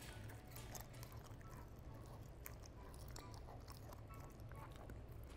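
German Shepherd chewing cold food. It is faint, with scattered small clicks over a low steady hum.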